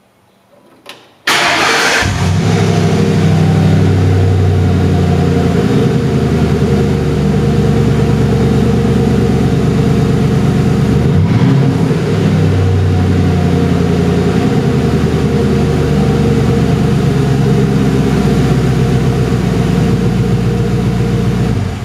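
Ford 4.6L V8 engine starting with a sudden catch about a second in, then running loud and steady at idle, its pitch shifting slightly a few times.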